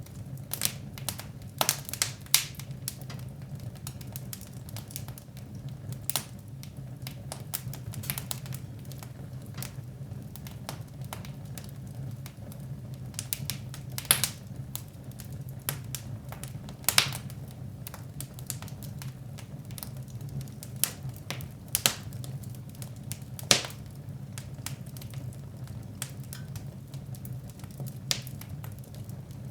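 Wood fire crackling in a fireplace: irregular sharp pops and snaps, a few of them louder, over a steady low rumble.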